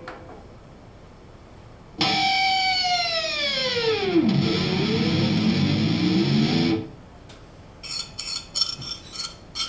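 Played-back musical sound example: a sudden loud, buzzy pitched tone that sweeps steeply downward in pitch and then wavers low before cutting off abruptly. It is followed near the end by a quick, irregular run of short, hissy rattling bursts.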